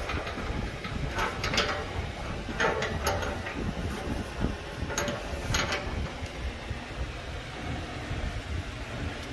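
Chrome brass faucet fittings clicking and scraping against each other and the stainless steel sink as they are threaded together by hand: a few short metallic clicks over a steady low background rumble.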